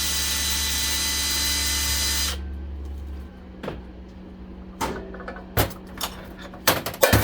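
Power drill running steadily, driving out the screws that hold a vacuum motor together, and stopping a little over two seconds in. Then a series of sharp clicks and knocks as metal parts are handled.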